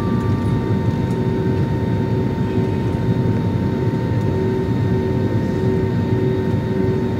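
Steady cabin noise of a jet airliner taxiing after landing: the engines running at low power under a constant hum of steady tones, heard from inside the passenger cabin.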